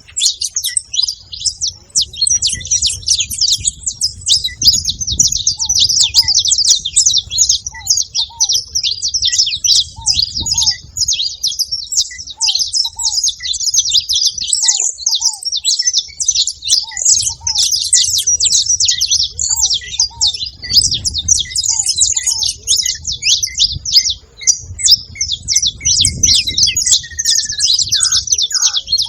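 Saffron finch singing and chirping: a continuous, dense stream of rapid high-pitched chirps and trills. Fainter short lower notes repeat about once a second underneath, and a falling whistle comes near the end.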